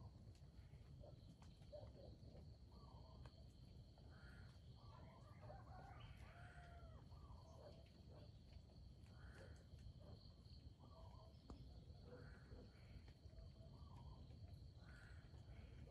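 Faint forest ambience: a steady high insect drone with scattered soft bird calls, busiest a third of the way through.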